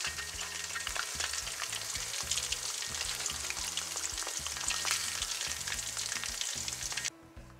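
Chicken pieces deep-frying in hot oil in a wok: a steady sizzle full of small crackles and pops, which cuts off suddenly near the end.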